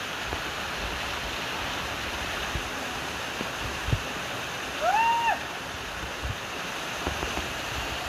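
Steady rush of a waterfall pouring onto rocks, mixed with heavy rain. A short high-pitched shout from a person about five seconds in.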